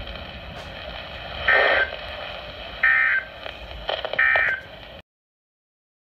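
Three short bursts of Emergency Alert System SAME digital data tones, about a second apart, over a steady radio hiss: the end-of-message code that closes the alert broadcast. The audio cuts off after the third burst.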